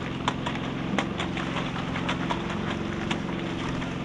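A small engine running steadily, with scattered clinks and knocks of buckets and tools on wet concrete.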